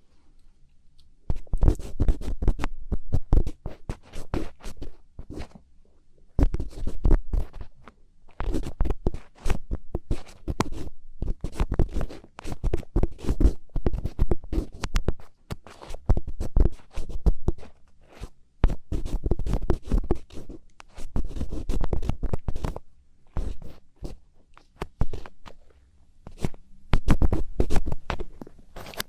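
A thin ear pick scratching and scraping in close-up ear-cleaning ASMR, in quick irregular runs of strokes with short pauses. It starts about a second in.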